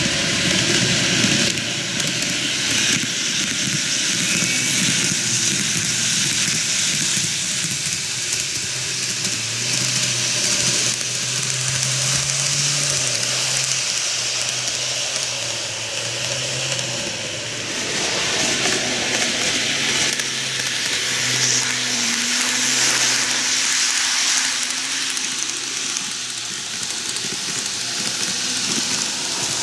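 N-gauge model electric trains running on TOMIX plastic-roadbed canted track: a steady hissing rattle of small metal wheels rolling on the rails, with a faint low hum from the model's motor that comes and goes.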